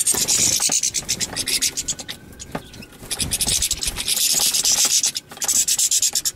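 Goldfinches singing: bursts of rapid, scratchy, high twittering, each a second or so long, repeated several times.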